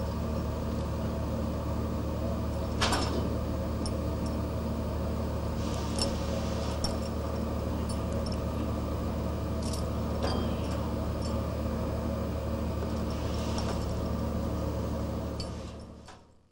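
Steady low hum of a ship's engine with a faint regular pulse, a few scattered clicks and knocks over it, fading out near the end.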